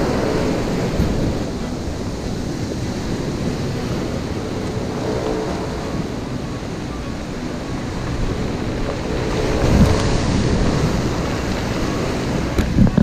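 Ocean surf breaking and washing up the beach in foam, with wind buffeting the microphone; a wave breaks louder about ten seconds in.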